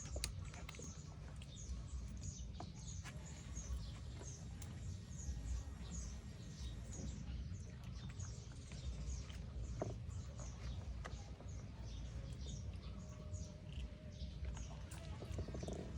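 Small birds chirping: short, high, falling chirps repeating a few times a second, over a steady low rumble.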